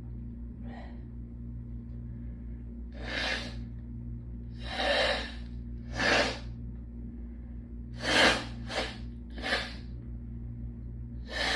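A congested woman blowing her nose in a series of short, forceful blows with quick breaths between, three of them in fast succession about two-thirds of the way in.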